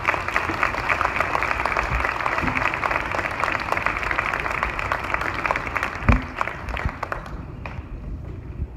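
Audience applauding, many hands clapping at once, dying away near the end, with a single thump about six seconds in.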